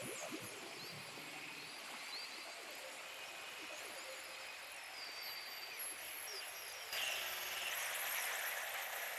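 Jungle ambience: many short high chirps, like birds or insects, over a steady hiss, with a louder rustling wash of noise coming in suddenly about seven seconds in.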